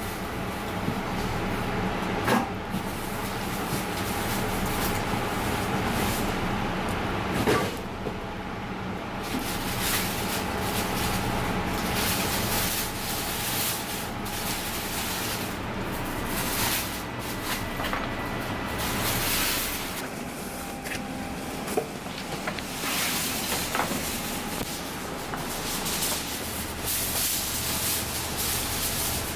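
Steady machinery hum and hiss of a kitchen, with a few sharp knocks and handling sounds from hands and a knife working raw fish on a plastic cutting board.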